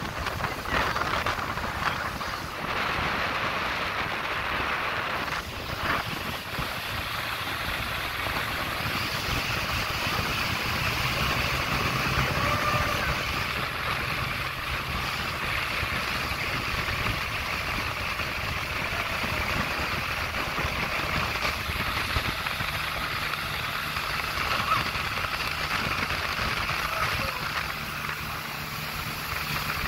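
Motorboat running at speed: a steady engine drone beneath the continuous rush of water off the hull and wake.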